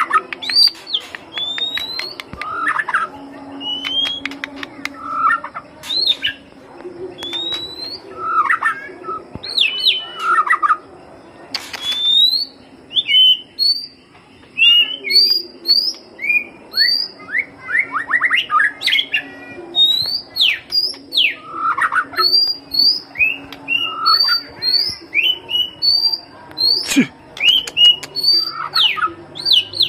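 White-rumped shama singing: a continuous run of varied whistled phrases, rising whistles alternating with quick down-slurred notes, about one phrase a second.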